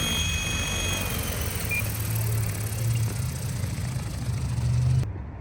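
A 12S electric Synergy 696 RC helicopter runs with a high motor whine over a low rotor hum. About a second in the whine slides lower and fades, as if the rotor head is spooling down. The sound cuts off abruptly near the end.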